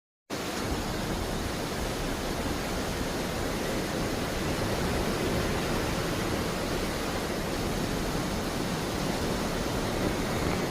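Steady rush of sea water churning along the side of a moving cruise ship, an even unbroken hiss with a heavy low rumble.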